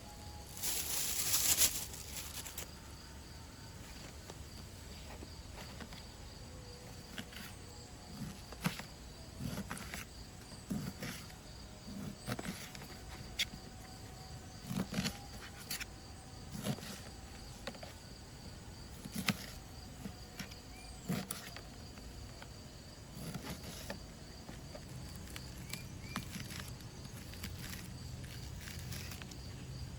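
Steady high-pitched insect chirping, with scattered sharp knocks and clicks and a short loud rush of noise about a second in.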